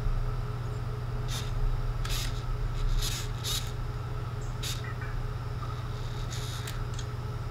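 Anki Vector robot making a string of short, high, hissy electronic chirps, about seven scattered over several seconds, as it reacts to a spoken question. A steady low electrical hum runs underneath.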